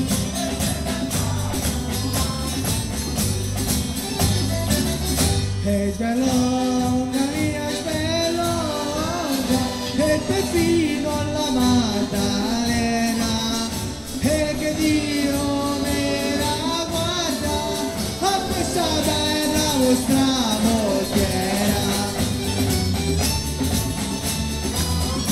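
Live southern Italian folk band playing, with tambourines jingling, accordions, guitars and a drum. Sung verses enter about six seconds in and carry on over the band.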